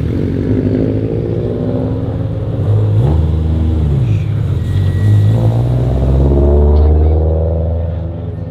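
Car engines running at low speed with throttle blips: the pitch rises and falls about three seconds in and again between five and seven seconds, where the revving is loudest.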